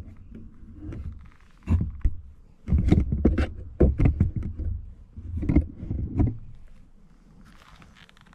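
A person blowing hard onto a smouldering campfire to revive it, in several long puffs that rumble on the microphone, with a few sharp crackles and clicks from the wood.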